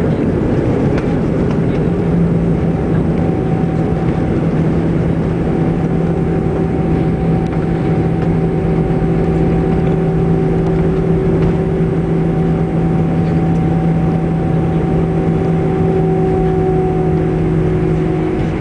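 Steady cabin noise of an Airbus A319 rolling on the ground after landing: the jet engines hum at low power with a few steady tones, over a constant rumble.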